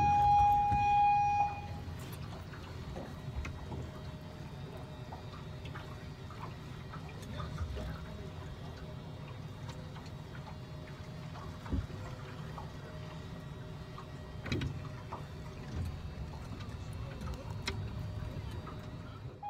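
Wind buffeting the microphone and water lapping around a small fishing boat, with a loud steady tone for about the first second and a half and a few faint knocks.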